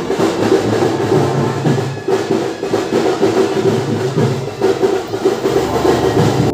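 Music with drums and percussion over steady held notes.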